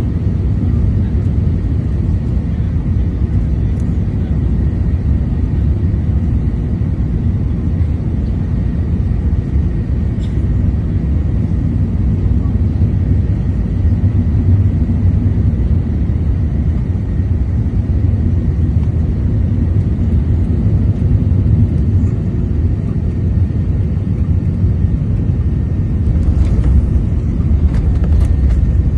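Steady low rumble of a jet airliner's cabin on final approach, engines and airflow heard through the window seat beside the wing. A few short knocks near the end as the aircraft reaches the runway.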